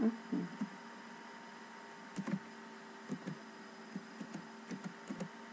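Computer keyboard keys tapped one at a time at an uneven pace, a few soft clicks a second with gaps between them, over a steady low electrical hum.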